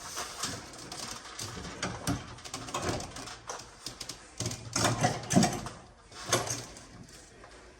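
Clamps being fitted and tightened: irregular clicks, ratcheting and knocks of metal parts, with a louder cluster about two-thirds of the way in.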